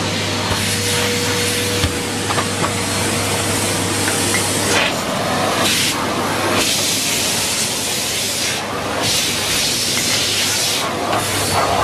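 Numatic Henry Pet cylinder vacuum cleaner running, a steady motor hum under a loud suction rush. The hiss changes every second or two as the nozzle is worked over the floor.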